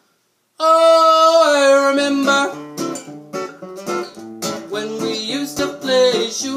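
A man sings along to his own acoustic guitar. After a brief silence there is one long held note, and from about two seconds in the guitar plays a picked and strummed pattern of stepping notes.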